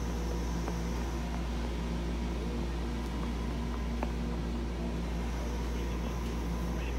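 Steady hum of a Metro-North electric commuter train standing at a platform, its ventilation and on-board equipment running with a few constant tones over a low rumble.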